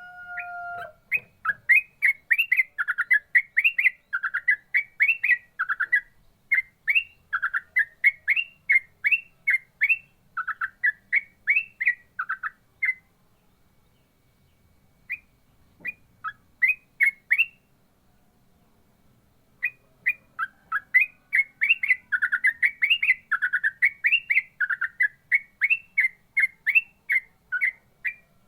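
Yellow-vented bulbul (trucukan) singing in fast 'ropel' runs of short, quick chirping notes, several a second. It breaks off for a few seconds midway with only scattered notes, then resumes a dense run near the end.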